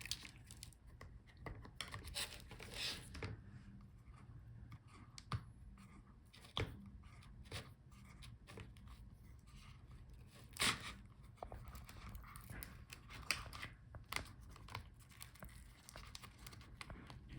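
Faint handling sounds as a laptop LCD panel's video cable is worked loose: scattered light clicks and scratches with some peeling or tearing noises.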